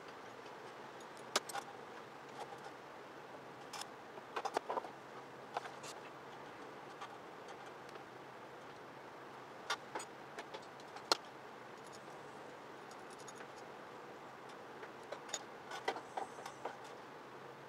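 Scattered, irregular metallic clicks and clinks of hand tools and parts being handled during motorcycle front-end assembly, with fork tubes being fitted into the triple clamps, over a steady background hiss.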